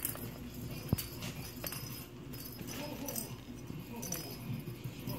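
Cat toys jingling and rattling as a kitten bats at them, with one sharp tap about a second in.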